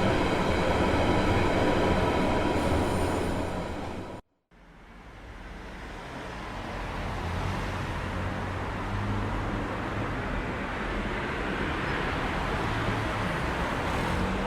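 Recorded city ambience in two takes: a loud running din with steady whining tones fades out about four seconds in, then after a moment of dead silence a quieter, even city rumble fades in and holds.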